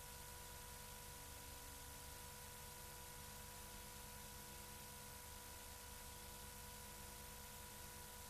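Near silence: a steady faint hiss with a low electrical hum.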